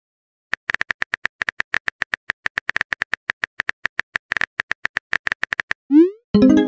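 Rapid, even keyboard-tap clicks of a texting app's typing sound effect as a message is typed, about eight a second. They stop near six seconds in, followed by a quick rising swoosh and then a short pitched chime as the message is sent.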